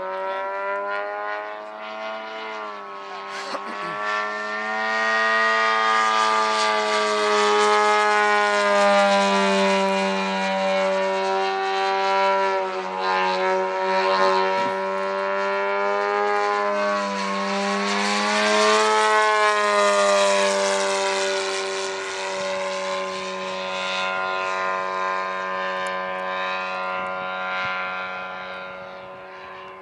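Giant-scale RC Yak 54's DLE-222 four-cylinder two-stroke gas engine and propeller running in flight, a steady buzzing drone whose pitch rises and falls with the throttle during 3D aerobatics. It grows louder through the middle as the plane comes closer and fades near the end.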